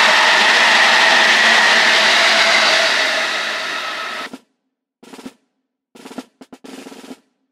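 Loud running noise of a train, a steady rush with a few held tones in it, that fades and cuts out about four seconds in; after that only a few faint, short scraps of sound.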